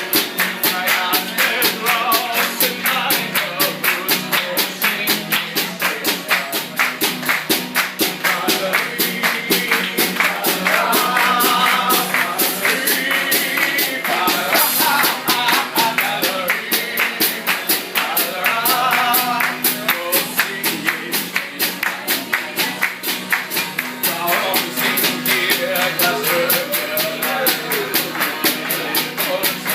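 A German song: a man's singing voice over a band backing with a steady, fast beat.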